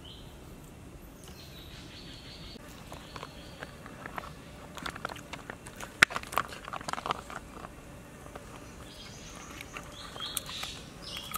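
Cooked king crab's shell being pried off and broken apart: a run of cracks and crunches with one sharp snap in the middle. Short buzzy animal calls come now and then in the background.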